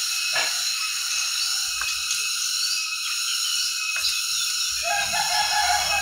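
A rooster crowing once, about five seconds in, over a steady high-pitched background din with a few faint clicks.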